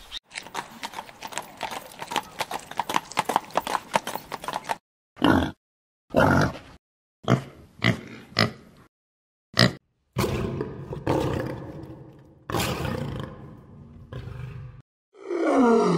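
Farm animal calls cut together with short dead-silent gaps between them. It opens with a rapid run of grunts, followed by separate coarse calls and a long pitched call near the end.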